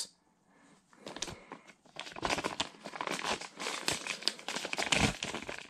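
Thin plastic bags crinkling and rustling as they are handled, starting about a second in and going on in a dense, crackly run.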